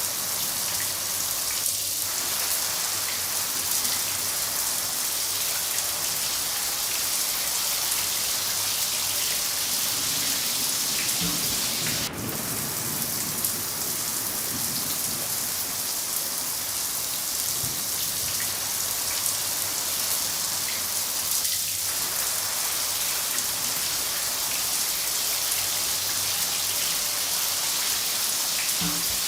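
Steady rain falling in an even hiss, with a low rumble of distant thunder swelling and fading about ten to thirteen seconds in.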